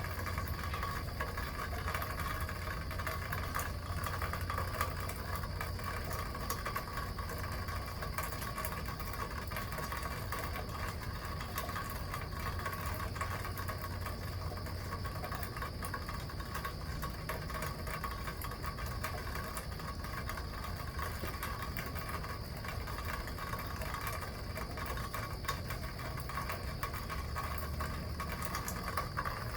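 Steady rain with water running and dripping from a roof gutter, over a low rumble that swells and eases slowly.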